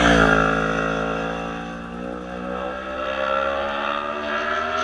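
Yamaha sportbike engine passing close by at speed: loudest as it goes past, its pitch dropping, then climbing steadily as the bike pulls away up the road.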